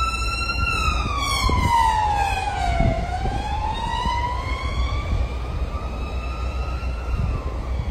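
Emergency vehicle siren wailing: one long tone that falls slowly for about three seconds, then rises again and fades. A steady low rumble runs underneath.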